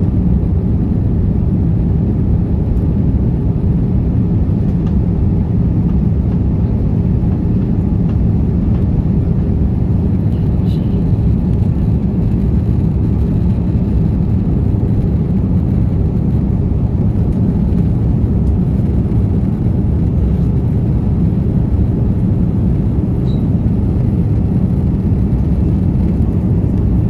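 Steady low-pitched cabin noise of a jet airliner in flight: engine and rushing-air noise heard from inside at a window seat.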